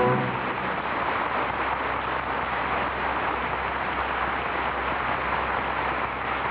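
A held musical chord cuts off just as it starts, leaving the steady hiss and crackle of a transcription disc's surface noise.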